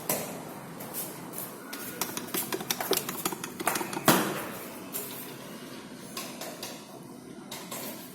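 A quick run of clicks and knocks, densest in the middle, with one louder knock about four seconds in.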